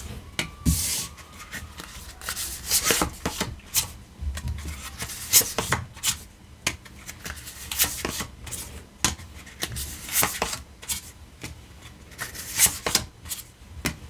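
A deck of tarot cards being shuffled and handled by hand: irregular snaps and slaps of the cards with rubbing in between.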